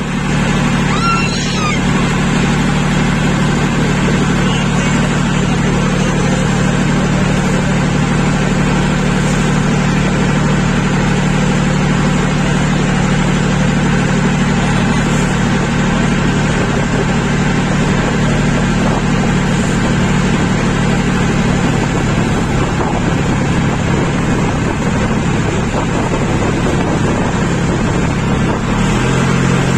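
Motorboat engine running steadily under way, a constant low hum. Its note shifts briefly near the end.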